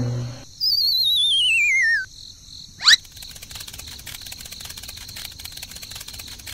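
Cartoon comedy sound effects: a descending whistle with a wobbling vibrato lasting about a second and a half, then a quick rising whistle swoop about three seconds in, followed by steady cricket chirping.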